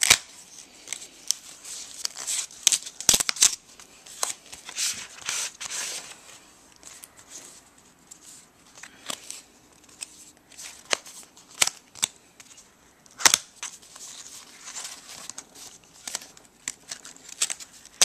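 Packaging of a clear keyboard cover being handled and pulled open by hand: irregular rustling and crackling of thin paper and plastic, with scattered sharp clicks, the loudest about thirteen seconds in.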